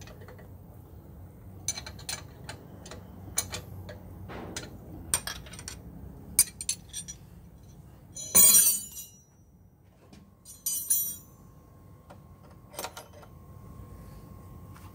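Steel spanners clinking against the bolts and bracket of a diesel engine's alternator mount: a run of light metal clinks, then a louder jangle of metal tools about eight seconds in and a shorter one about a second later.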